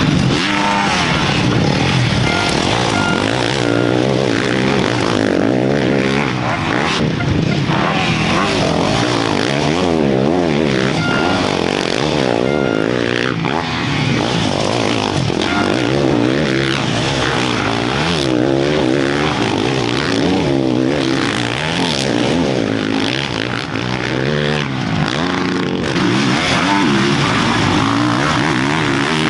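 Several motocross bikes racing, their engines revving up and down through the gears as they corner and jump, one over another.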